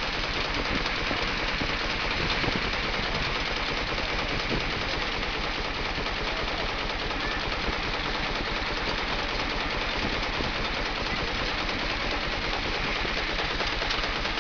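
Aultman Taylor 25-75 steam traction engine running steadily while driving a belt-driven brake dynamometer, its exhaust beating fast and evenly.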